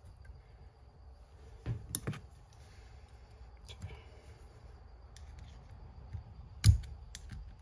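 Pliers gripping and pulling a stainless steel exhaust-wrap tie tight around a header-wrapped exhaust pipe: a few sharp metallic clicks about two seconds in, small clicks after, and one louder click near the end.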